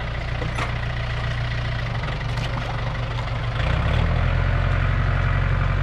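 Farm tractor engine running steadily, then rising in revs and load about three and a half seconds in as its front loader works.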